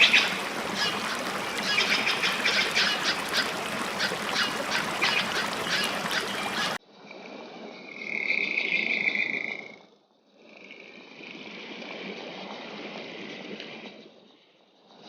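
A chorus of rapid, pulsing animal calls over a steady rushing noise, cut off suddenly about seven seconds in. It gives way to a quieter rushing sound with a steady high tone, which pauses briefly near ten seconds.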